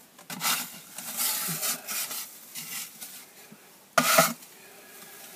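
Drywall knife scraping joint compound across the wall in several spreading strokes, laying a second coat over a taped crack, with one sharper, louder scrape about four seconds in.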